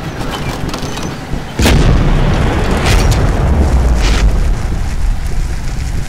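A sudden deep boom about a second and a half in, followed by a low rumble that carries on, with a couple of brief hissing swishes over it.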